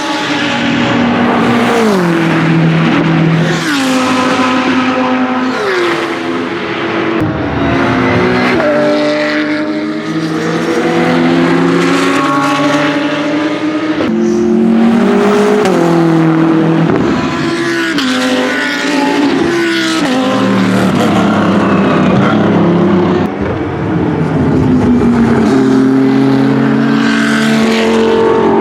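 BMW M6 GT3 race car's twin-turbo V8 at racing speed, with other race cars around it. The engine pitch drops in steps as it downshifts under braking in the first few seconds, then rises as it accelerates away. Several engines are heard at once at times.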